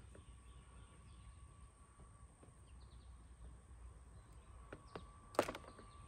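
Quiet background with faint bird chirps and a few light handling clicks, then one sharp click about five and a half seconds in.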